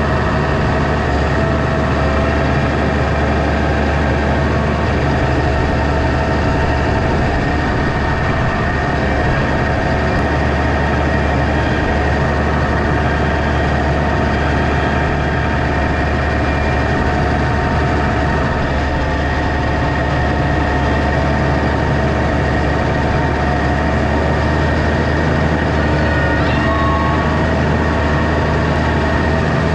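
Diesel loader tractor engine running steadily at an even pitch.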